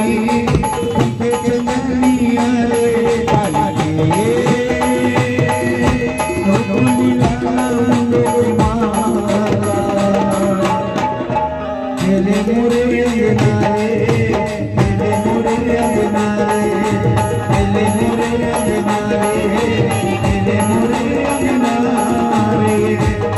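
Live Hindi devotional bhajan music: a melody on harmonium and electronic keyboard over tabla, dholak and dhol drumming, with a rattling percussion accompaniment.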